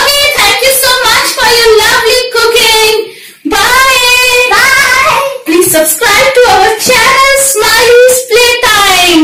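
A young child singing, with a woman's voice singing along.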